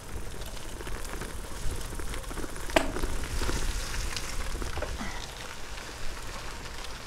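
Gravel bike tyres rolling and crackling over a gravel towpath, with a low rumble underneath and a sharp click about three seconds in.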